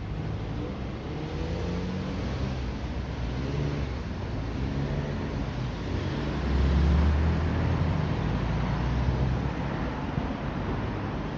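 Car traffic passing close by on a city avenue: engines and tyre noise in a steady stream, swelling loudest as a car goes by a little past halfway through.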